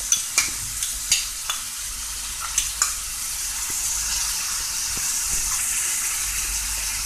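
Diced chicken, onion and garlic sizzling steadily in oil in a frying pan, with a few clicks of a stirring utensil against the pan in the first three seconds.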